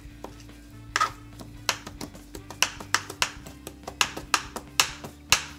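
Chef's knife chopping fresh cilantro on a plastic cutting board: an uneven run of sharp knife strikes on the board, two or three a second, starting about a second in, with background music underneath.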